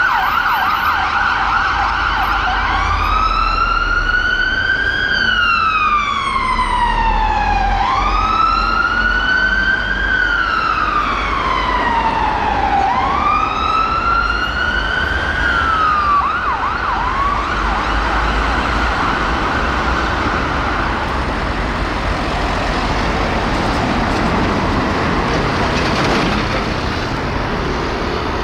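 Emergency vehicle siren going from a fast yelp into a slow wail that rises and falls about every five seconds, then back to a fast yelp. The siren stops after about twenty seconds, leaving traffic and engine noise.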